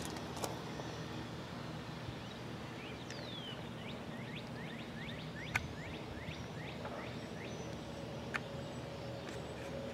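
Outdoor background noise with a bird calling a run of quick downward-sliding chirps, about three a second, through the middle; a few sharp clicks, the loudest about five and a half seconds in, and a faint steady hum near the end.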